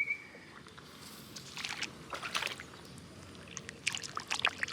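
Shallow, muddy field water splashing and trickling in two short bouts of sloshing.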